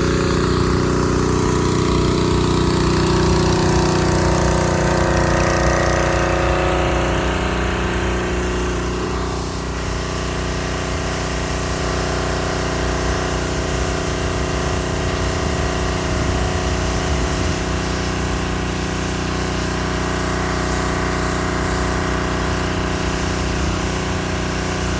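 Pressure washer running steadily, its engine and pump running under a hissing water spray.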